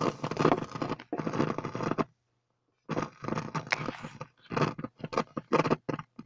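Scraping, crunching handling noise from something rubbing right against the microphone, in irregular bursts with sudden silent gaps, over a faint steady low hum.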